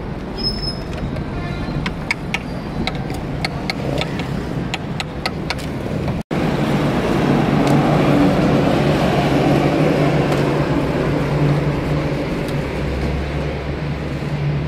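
A large pot of stock boiling hard, with street traffic behind it. A run of sharp clicks comes in the first few seconds. About six seconds in, the sound switches abruptly to a louder, steady rushing noise with a low hum underneath.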